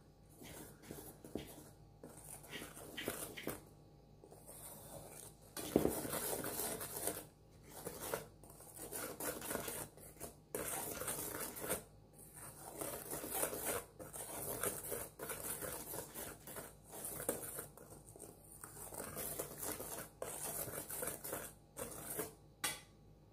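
Wire whisk stirring a dry flour mixture in a stainless steel bowl: uneven spells of scraping and swishing, the wires brushing against the metal, with short pauses, stopping just before the end.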